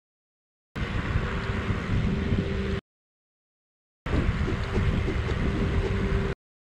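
Wind buffeting the microphone and tyres rumbling on asphalt as a bicycle is ridden, with a steady hum running through. It comes as two clips of about two seconds each, both starting and stopping abruptly, with dead silence before and between them.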